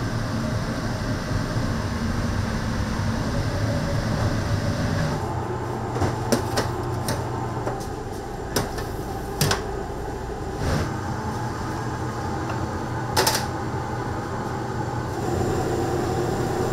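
Restaurant kitchen ambience: a steady mechanical hum and rumble, with a scatter of sharp clicks and knocks, as of cookware and utensils, through the middle stretch. The loudest knock comes near the end.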